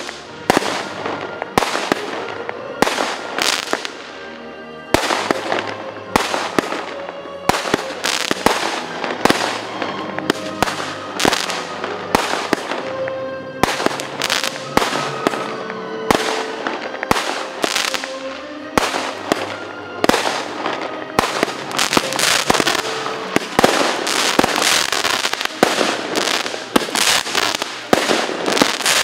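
Fireworks exploding: a rapid, irregular series of sharp bangs and crackles that grows denser and more continuous in the last third.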